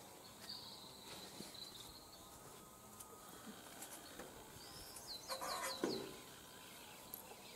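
Faint birdsong and chirping. About five seconds in comes a quick run of about five falling chirps, together with a short rustle and soft thump as a person sits down on a metal bench.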